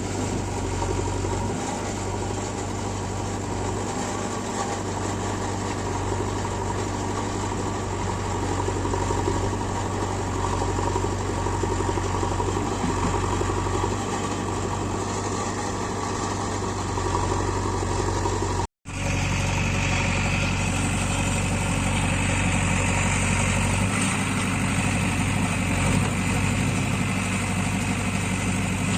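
JCB 3DX backhoe loader's diesel engine running steadily. The sound cuts out completely for a split second about two-thirds of the way in, then the engine resumes.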